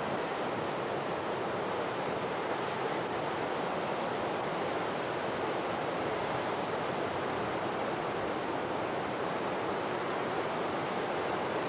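Steady, even rush of seawater pouring over collapsing earth walls into an abandoned open-cast tin mine pit, picked up by a camcorder microphone.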